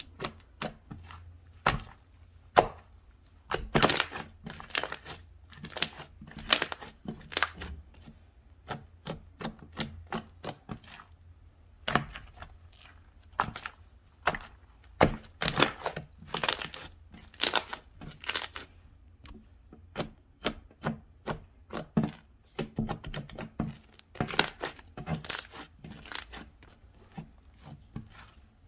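Slime being squished, pressed and stretched by hand, making an irregular run of sharp sticky clicks and pops.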